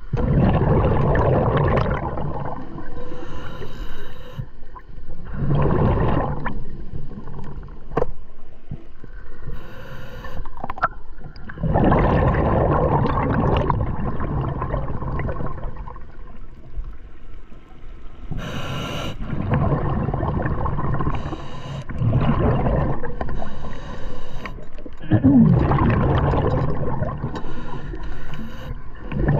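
Scuba diver breathing through a regulator underwater: long bursts of exhaled bubbles rumbling and gurgling every few seconds, with quieter breaths in between.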